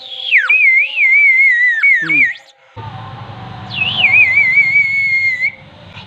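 Clay bird whistle blown in two warbling blasts of about two seconds each. Each starts on a high note that drops into a lower trilling tone with a fast, even wobble in pitch.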